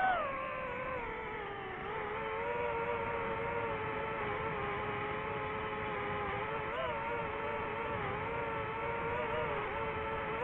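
DJI FPV drone's motors and propellers whining steadily. The pitch drops over the first second or two, then holds with small wobbles and a brief upward blip about seven seconds in.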